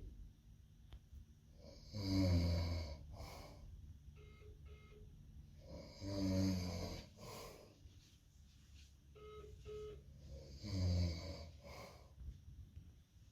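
A man snoring in deep sleep: three loud, low snores about four seconds apart, with quieter breathing between them.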